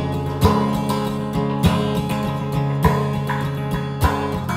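Background music of strummed acoustic guitar, with a strong accented strum about every second and a quarter over sustained chords.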